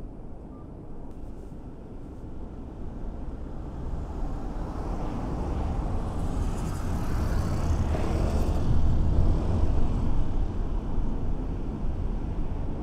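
Low rumble of road traffic and a car driving on a city street, growing louder from about four seconds in and loudest around eight to ten seconds.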